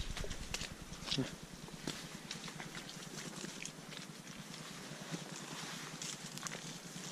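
Footsteps of several people walking on a wet, muddy forest trail: irregular steps and scuffs, about one or two a second, over a steady hiss.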